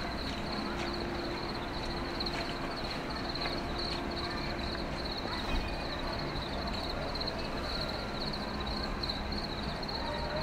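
A steady, high-pitched trilling chorus of night-calling animals runs continuously over a low background rumble of the outdoors. A low steady hum sounds through the first few seconds.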